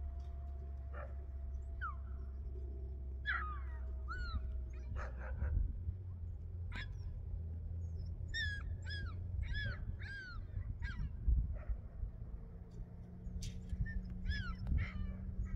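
A dog whimpering and yelping in short high-pitched calls, a few singly and then in two runs of several, over a steady low hum.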